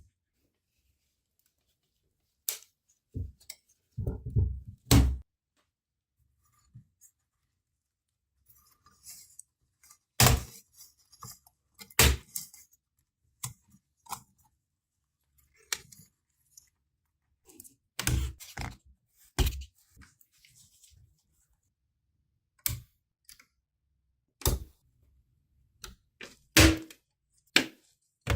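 Irregular clicks and knocks from laptop parts and tools being handled during a repair and cleaning, with a few heavier thumps about four seconds in and silent gaps between.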